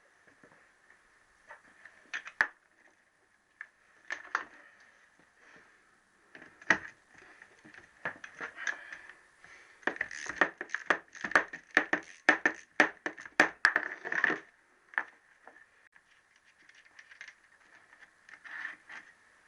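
Hand tools clinking on metal as the nuts of a Triumph T120R engine's crankcase are undone. There are scattered sharp clinks and a knock, then a run of quick metallic clicks from about ten to fourteen seconds in.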